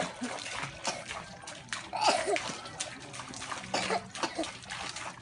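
Koi splashing and churning at the pond surface as they crowd at the water's edge, with many quick, irregular splashes.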